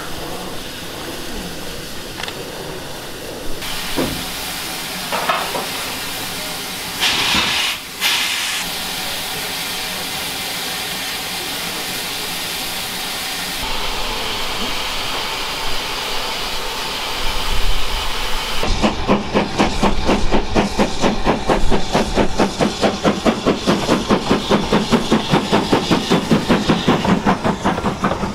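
Steam locomotives standing in steam, with a steady hiss and a louder burst of steam about seven seconds in. About nineteen seconds in this gives way to a double-headed steam train, an Ivatt 2MT tank and a BR Standard 4 tank, passing close with a fast, even beat of exhaust and wheels.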